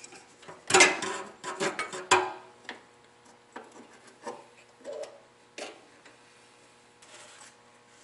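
Sheet-metal clatter and scraping as a thin metal cover strip is worked off the front of a gas furnace's burner assembly, loudest about a second in, followed by a few separate light knocks and clicks.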